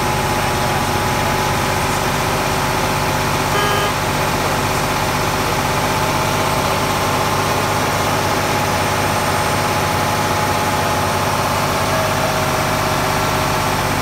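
Diesel engine of a semi tractor idling steadily after a restart, with a short high tone about three and a half seconds in.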